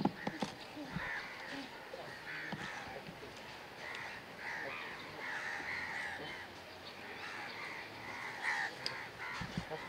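Crows cawing repeatedly, a run of short calls one after another.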